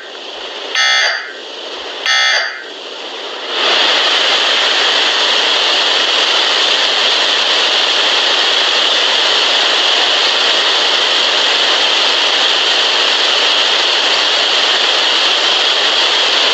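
Two short digital data bursts of an Emergency Alert System end-of-message signal, about a second apart, over a low hiss. About 4 s in, loud steady static takes over.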